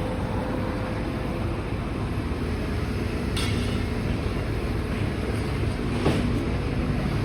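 Demolition excavator's diesel engine running steadily, with two brief knocks, about three and six seconds in.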